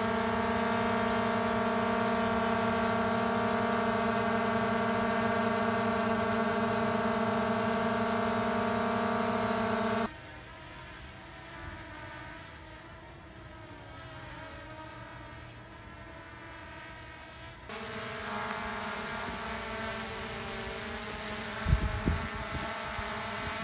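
Small DJI quadcopter drones hovering, a steady buzz of several propeller tones. About ten seconds in the sound cuts abruptly to a much quieter, wavering hum. Near the end a moderate buzz returns, with a brief thump.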